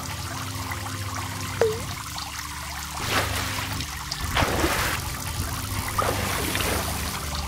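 Sound-effect water trickling and splashing over a steady low hum, as in a logo intro. There is a single bubbly drop sound about one and a half seconds in, and splashy swells about three, four and a half and six seconds in.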